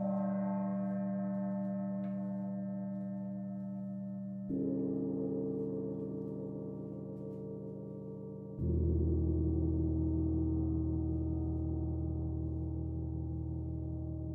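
Gong struck three times, each stroke ringing on with many sustained overtones that fade slowly, the third deeper and louder than the first two.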